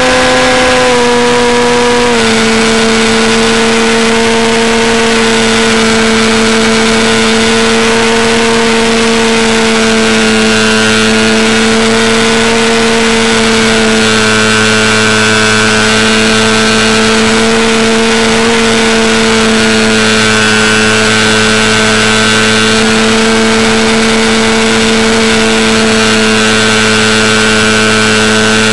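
Model airplane's motor and propeller heard from a camera on board, running at a steady high throttle. It is a loud, even whine whose pitch drops slightly about two seconds in and then holds.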